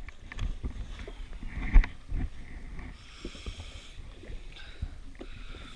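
Small waves lapping and slapping against a jet ski's hull, with a couple of dull knocks a little under two seconds in.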